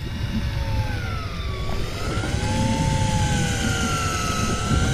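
Daiwa Tanacom 1000 electric reel motor whining as it winches line up from deep water, its pitch sagging and rising as the hooked fish pulls against it. Low wind and sea rumble underneath.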